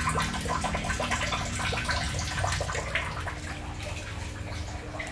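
Water running and splashing, busiest in the first three seconds and easing off after, over a steady low hum.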